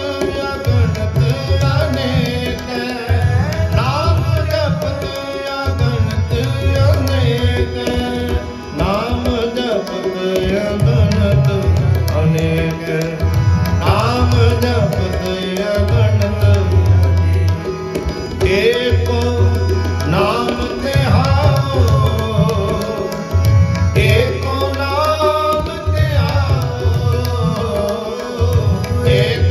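Sikh kirtan: tabla drums keep a steady rhythm under two harmoniums, with a man's voice singing in long, rising phrases.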